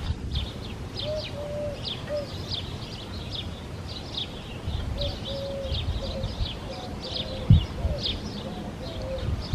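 Outdoor birdsong: birds chirping over and over in quick short high notes, with some lower, drawn-out calls mixed in. A low rumble runs underneath, with a single thump about seven and a half seconds in.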